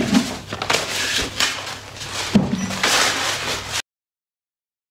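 Close rustling, scraping and knocking noises of something being handled and moved, cutting off abruptly into silence a little under four seconds in.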